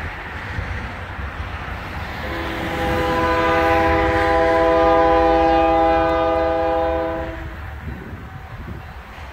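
Great Lakes Central Railroad locomotive air horn sounding one long chord of several notes, held for about five seconds, starting about two seconds in. Wind and road noise run underneath.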